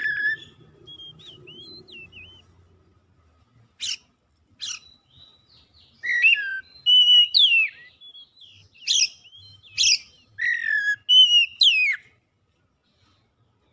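Oriental magpie-robin (kacer) singing: loud whistled phrases with sliding notes mixed with sharp chirps, in bursts with short pauses. The song stops near the end.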